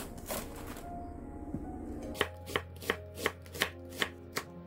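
Kitchen knife slicing onion into strips on a wooden cutting board, sharp even cuts about three a second starting about two seconds in.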